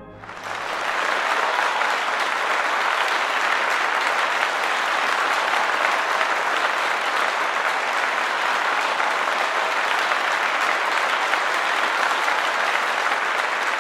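Audience applause, a dense, even clapping that swells in within the first second and then holds steady.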